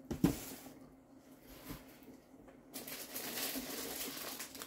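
A single knock of an item being set down on the table just after the start, then a quiet stretch, then from about three seconds in a steady rustle of packaging being rummaged through.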